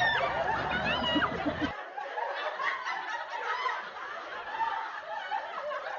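Raised voices, then laughter from several people, sounding thinner from about two seconds in.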